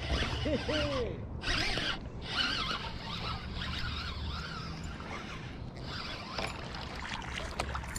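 Spinning fishing reel cranked continuously, a whirring rasp, while a hooked largemouth bass is reeled in.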